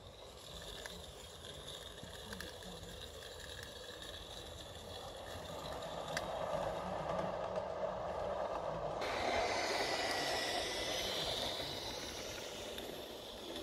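16mm-scale live-steam model locomotive hauling coaches along a garden railway track: a steady running rattle that grows louder as the train comes closer, loudest about two-thirds of the way through.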